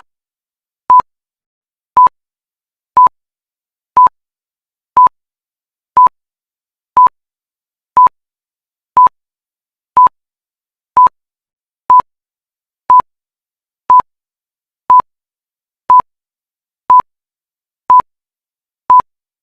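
Countdown timer beeping once a second: short, identical single-pitch pips with silence between them.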